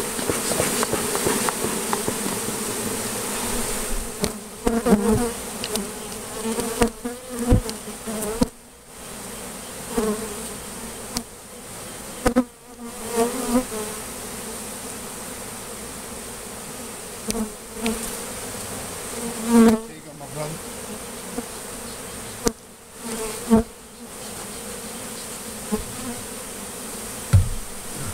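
A large honeybee colony buzzing steadily in an open hive box, disturbed as it is driven down between the frames. Brief thumps and rustles come through now and then.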